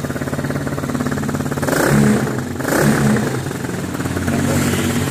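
A 150cc four-stroke ATV engine running with the throttle blipped twice, about two and three seconds in, so that the note briefly rises and gets louder before settling back.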